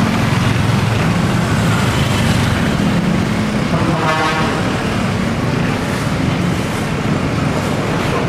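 Street traffic with engines running in a steady low rumble, and a vehicle horn sounding once for about a second midway.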